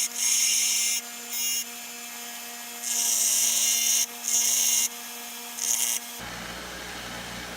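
Power grinder running with a steady motor hum while its wheel grinds down steel bolt ends and a nut in several short passes, each a harsh, high hiss lasting about a second. About six seconds in, the grinder's hum stops and a low rumble remains.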